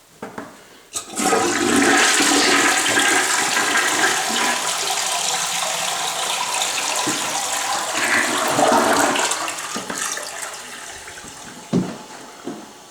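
Toilet flushing: a click of the handle about a second in, then rushing water for about eight seconds that fades away. A single knock near the end.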